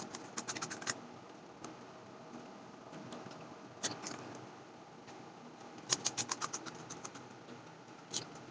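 Crisp panipuri shells cracking and crunching as they are broken open and eaten: sharp little clicks in clusters, a quick run in the first second, a single crack near the middle, and another run about six seconds in.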